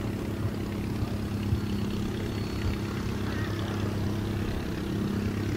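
De Havilland Tiger Moth biplane's Gipsy Major four-cylinder engine and propeller running steadily at low taxiing power, an even low hum.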